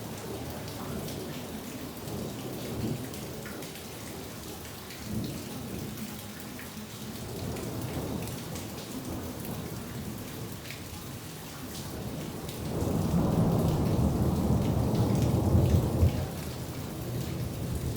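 Steady rain falling and pattering, with low thunder rumbling throughout. A louder, deeper rumble of thunder swells about two-thirds of the way in, lasts about three seconds and ends abruptly.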